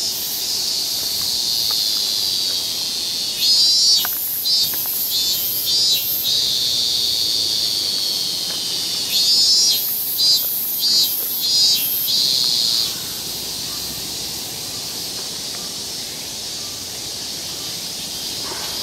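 Cicadas calling in summer trees: a steady high-pitched drone, with two stretches of loud, rapidly pulsing calls, a few seconds in and again near the middle. After that the drone settles back to a softer hum.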